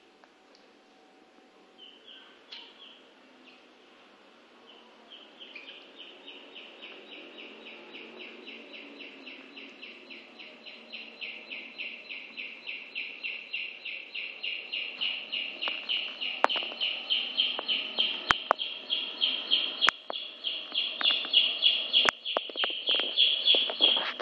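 A chick peeping over and over, about four short high peeps a second, growing steadily louder. A few sharp clicks come in the later part.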